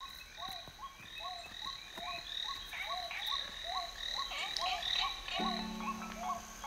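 Background music: a short pitched figure repeating rapidly at an even pace over a steady high tone, with a sustained low note coming in about five seconds in.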